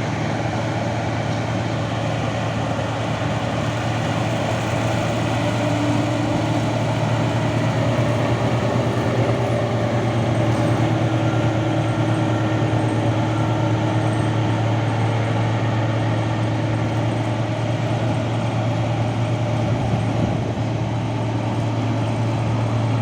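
Claas Tucano 440 combine harvester running steadily while harvesting wheat: a continuous low engine hum under an even machinery noise, with no change in pace.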